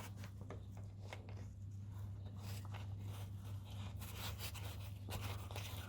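Faint clicks and short scrapes of the filler plug being threaded by hand into a GAZelle's rear axle housing, over a steady low hum.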